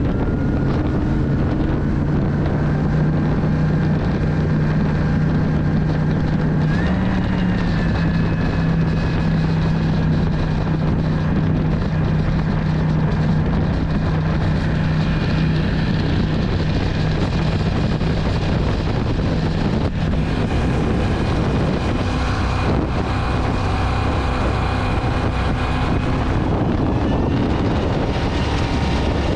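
Supercharged LS V8 jet boat running under way at cruising speed, its steady engine note stepping up slightly about seven seconds in, with water rushing and wind buffeting the microphone.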